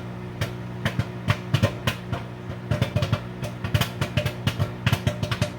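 Popcorn kernels popping in a brown paper bag in a microwave oven: fast, irregular sharp pops, several a second, over the steady hum of the running microwave.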